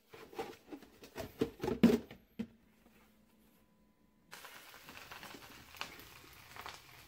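Plastic bowls and a metal pot knocking and clattering as they are rummaged in a kitchen cabinet, loudest about two seconds in. After a short pause, a spatula scraping and tossing fried rice in a wok, with a steady hiss underneath.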